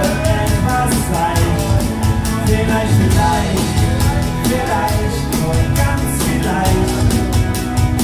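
Live band playing a folk-pop song, with a steady drum beat.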